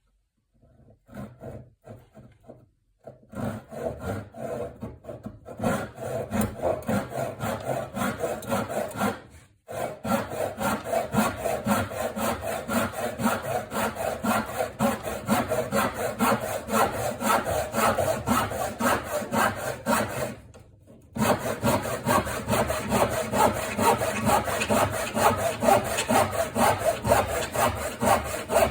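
Freshly sharpened foxtail handsaw cutting through wood in quick, steady back-and-forth strokes, starting a few seconds in and pausing briefly twice.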